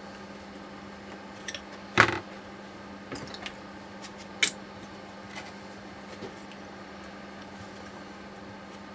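Several sharp clicks and knocks of tools and metal parts being handled during steering rack disassembly, the loudest about two seconds in and another near the middle, over a steady low hum.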